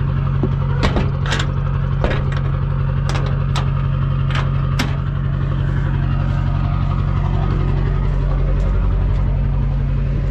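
Pickup truck engine idling steadily while hitched to a loaded livestock trailer, with a few sharp knocks and clanks in the first five seconds.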